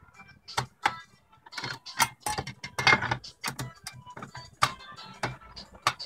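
Princess 300 manual typewriter being typed on: irregular key strikes clacking, with a dense run of clicks and ratchet-like mechanism noise about two to three seconds in.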